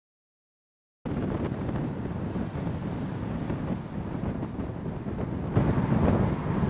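About a second of silence, then steady low wind noise on the microphone, gusting louder near the end.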